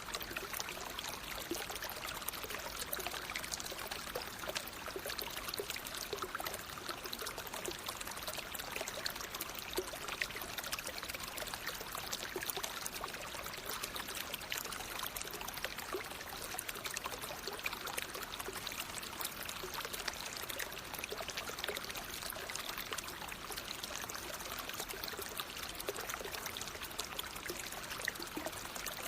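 Flowing water running steadily, an even rush of water dense with many small splashes, with no pauses or changes.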